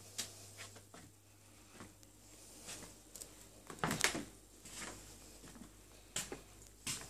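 Footsteps on a wooden floor: irregular knocks and taps of someone walking through small rooms, loudest about four seconds in.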